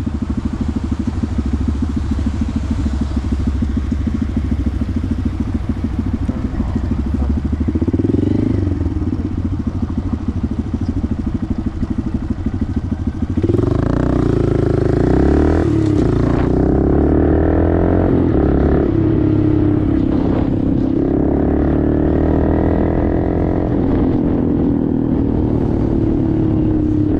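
Honda Grom's 125cc single-cylinder engine through a Toce aftermarket exhaust, running at low, steady revs with a short blip about 8 seconds in. About halfway through it gets louder and revs up repeatedly, its pitch rising and dropping as the bike pulls away and changes gear.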